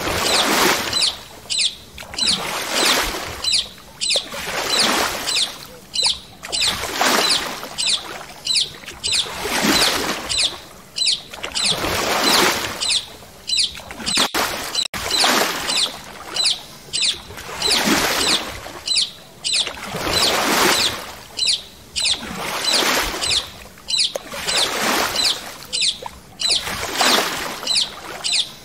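Paddle strokes in the water from a paddle board: a swishing splash about every two seconds, each sweeping down in pitch, with short high ticks in between.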